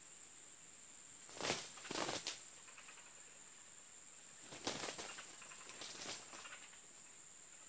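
Two red junglefowl cocks fighting: flurries of wing flapping as they leap at each other, one short flurry about a second and a half in and a longer one a little past the middle.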